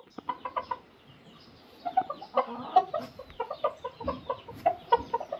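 A rooster and hen settled in a straw nesting box clucking softly in short, irregular repeated notes, with a pause about a second in. The owner takes the rooster's clucking as him finding a better nesting box for the hen.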